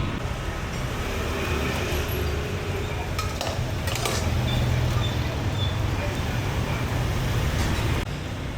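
Busy street ambience: a motorbike engine running close by over steady traffic noise, with a few clinks of dishes and utensils.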